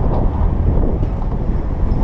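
Diesel engine of a Cat 320 excavator running steadily, a loud low rumble.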